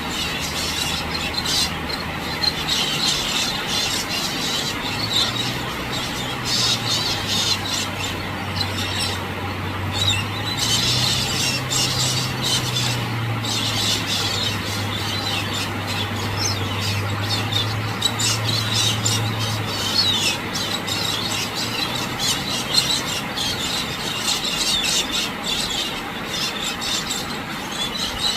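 Galahs calling: a stream of many short, harsh screeches in quick succession.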